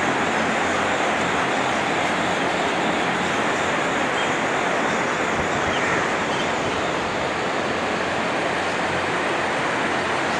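Large cattle-shed ventilation fans running: a steady rushing noise with a faint low hum underneath.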